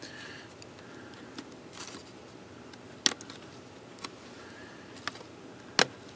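Small handling clicks and taps of metal tweezers and fingers working at the RAM slot and board inside an open MacBook Pro. Two sharp clicks, one about three seconds in and one near the end, stand out among lighter ticks and soft scrapes.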